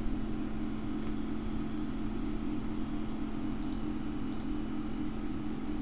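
A steady low hum and faint hiss of microphone background noise, with two faint computer-mouse clicks in quick succession a little past halfway.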